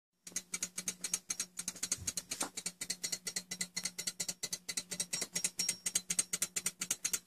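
Brass fusee clock movement running without its pendulum, its escapement ticking rapidly and evenly, several ticks a second.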